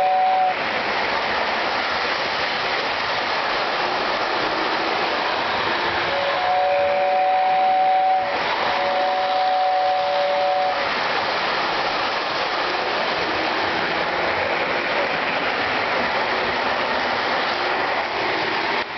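Lionel O-gauge model train running on the layout's track with a steady rattling rumble. A two-note train whistle sounds briefly at the start, then gives two long blasts about a third of the way in.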